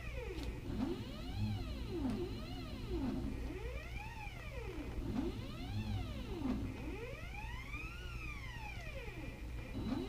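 CNC machine's stepper motors whining as it plots with a pen, the pitch rising and falling in repeated arches about every two seconds as the axes speed up and slow down. A steady low hum runs underneath.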